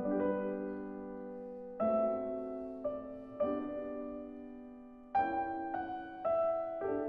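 Background music: a piano playing slow chords, each struck and left to ring and fade before the next one, about every one and a half to two seconds.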